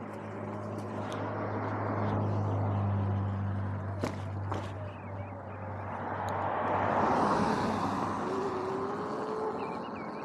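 Sur-Ron electric dirt bike being ridden off-road: tyre and wind noise with a steady low hum in the first few seconds, a sharp knock about four seconds in, and a louder rush around seven seconds.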